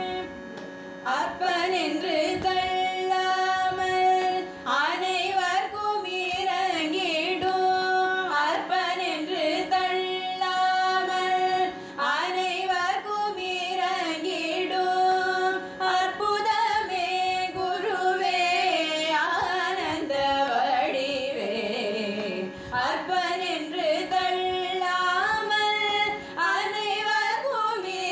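Carnatic-style devotional bhajan singing: a voice sings ornamented, gliding phrases a few seconds long over a steady drone.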